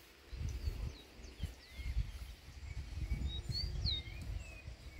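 Birds chirping: a scatter of short, quick whistled notes that slide up and down, busiest a little past the middle, over a low, uneven rumble.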